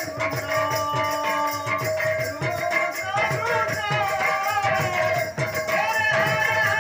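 Live kirtan music: a voice singing a wavering melody over a steady held tone, with a regular drum beat and jingling percussion.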